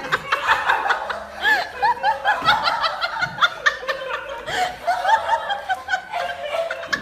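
Laughter: many short chuckles in quick succession, with music underneath.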